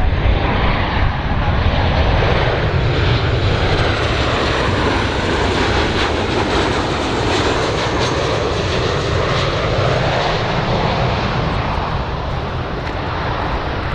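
Boeing 737-800 (BBJ2) with CFM56 turbofan engines passing on landing approach: a steady rush of jet noise with a faint high whine that bends in pitch.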